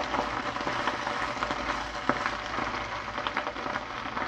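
Water-sprinkled mustard-green leaves sizzling steadily in a hot wok, with a few sharp clicks of the tongs against the pan.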